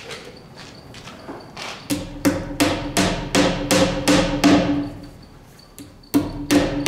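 Hammer tapping cable-clamp nails into a wooden post. A few light taps come first, then about two seconds in a run of quick, even strikes at about three a second, each with a ringing tone. After a short pause the strikes start again near the end.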